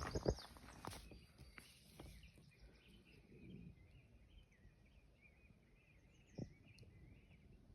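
Faint songbird singing, a continuous warbling twitter. A few sharp knocks sound in the first second and a single one about six seconds in.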